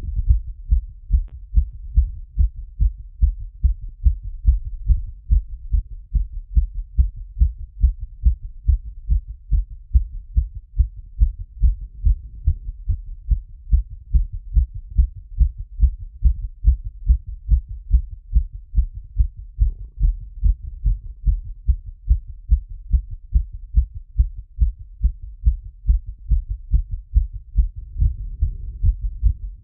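Human heartbeat heard through a stethoscope after exercise and squats: a fast, regular lub-dub rhythm of low, muffled thuds.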